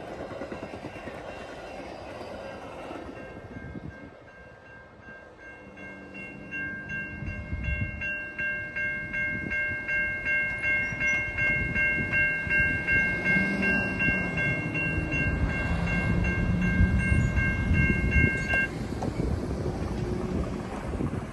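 A train approaches and passes, its low rumble building from about six seconds in with a regular clacking beat of about two per second. Over it a high, evenly pulsing ringing starts about three seconds in and stops suddenly near the end.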